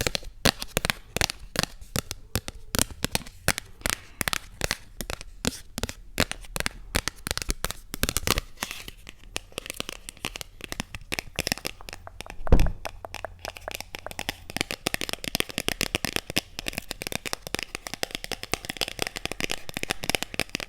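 Close-miked ASMR tapping and crinkling: quick sharp taps in the first half, turning into a denser, continuous crackle later, with one low thump about twelve seconds in.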